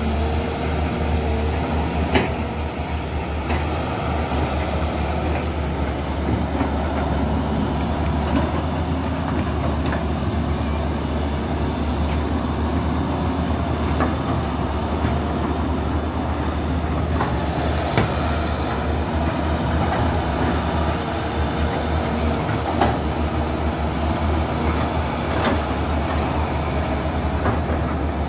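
Caterpillar E200B hydraulic excavators' diesel engines running steadily while digging, with a strong low drone. Now and then a sharp metallic clank cuts through.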